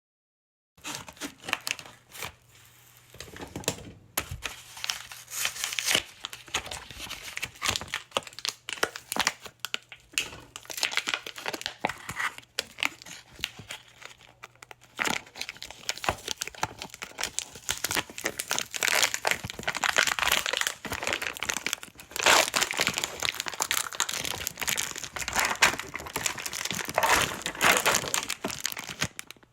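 Plastic food packaging being opened by hand: continuous irregular crinkling and crackling of the wrapper, with sharp snaps and tearing, louder in several spells.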